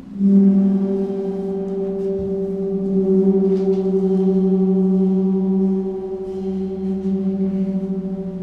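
Large gong in a floor frame sounding a sustained, steady humming drone: a low tone with a stack of overtones above it, starting suddenly just after the start, swelling a little about three seconds in and easing slightly near six seconds.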